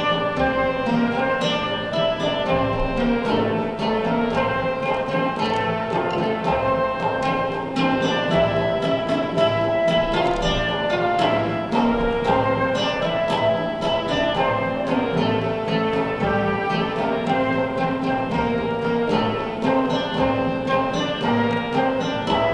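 Live acoustic folk ensemble playing a Greek tune: a transverse flute and a plucked lute carry the melody while frame drums beat a steady rhythm.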